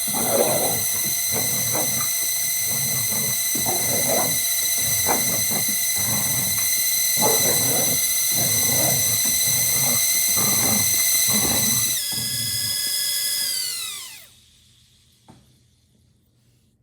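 Small toy drone's motors whining at a steady high pitch, with a dog barking at it over and over. About twelve seconds in, the whine drops and the motors wind down to a stop, leaving near silence.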